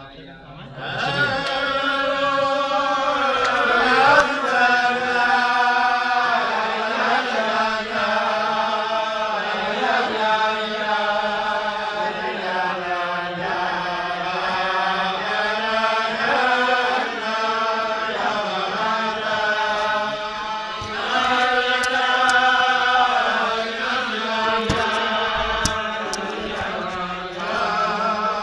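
A group of men singing a slow Chasidic niggun together, the melody rising and falling in long phrases; the singing starts about a second in.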